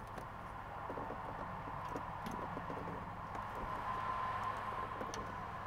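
Faint small plastic clicks and rattles from hands working the mass airflow sensor and its fittings at the engine airbox, over a steady low hum and a faint steady whine.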